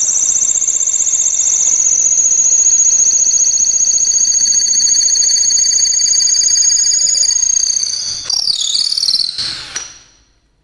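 Flipkart SmartBuy 20 V cordless drill in its fast second gear, boring a twist bit down through a 3-inch-thick block of hard wood: a loud, steady high whine for about eight seconds. Over the last couple of seconds the pitch wavers as the bit is worked out of the hole, and the motor stops.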